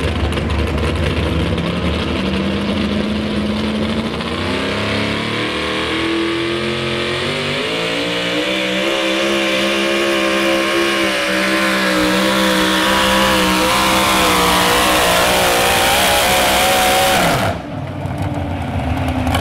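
Supercharged engine of a modified 4x4 pulling truck at full throttle pulling the sled. The revs climb over the first several seconds, hold high and steady, then cut off abruptly near the end as the run ends.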